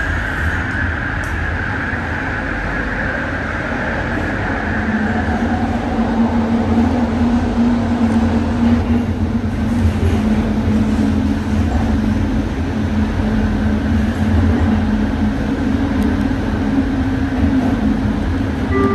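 Cabin of an ART200 metro car in motion: a steady rolling rumble of the wheels on the track, with a high wheel squeal that fades out over the first five seconds. A steady low hum joins about five seconds in.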